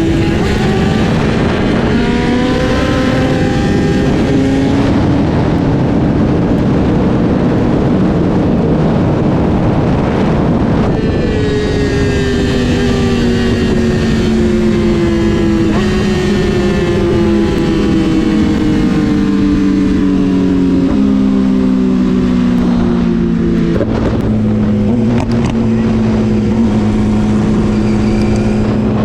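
Sport-bike engine running under way, its pitch sliding slowly down with several stepped changes of gear, over a heavy rush of wind noise.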